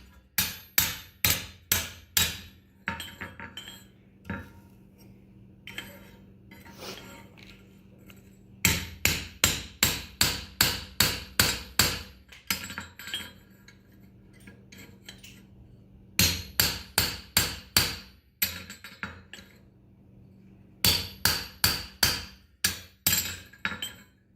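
Hammer driving a pritchel through a hot steel horseshoe on an anvil to open the nail holes. The hammer falls in quick runs of sharp metal-on-metal blows, about two and a half a second, four times over, with lighter taps in between.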